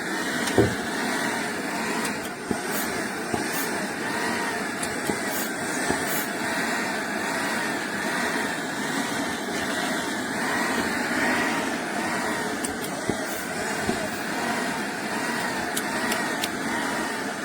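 Portable high-pressure PCP air compressor running steadily, its whine rising and falling in a regular cycle a little more than once a second. A single sharp knock near the start.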